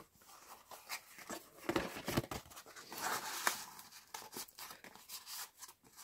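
Paper and card rustling with light taps and clicks as journal pages and a stiff printed card are handled and turned, with a louder rustle about three seconds in.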